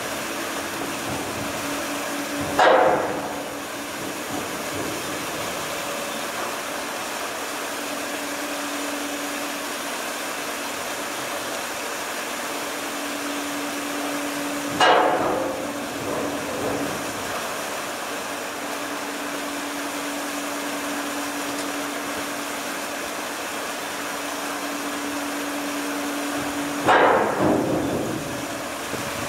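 Steady mechanical hum of a passenger ship's machinery, with one low steady tone running under it. Three times, about twelve seconds apart, a short loud rushing noise rises over it and fades within about a second.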